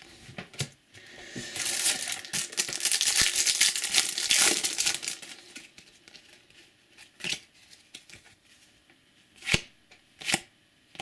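Foil trading-card booster pack crinkling and tearing as it is opened, loudest in the first half. Then a few light clicks of cards being handled.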